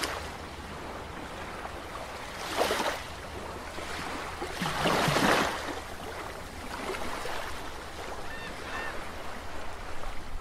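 Underwater-style sound effects for an animated logo: a steady rushing water ambience over a low rumble, with two whooshing swells, the second and louder one about five seconds in. A few short chirping blips follow near the end.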